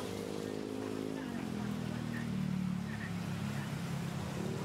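An engine running with a steady pitched hum; its pitch drops a little over a second in and rises again near the end.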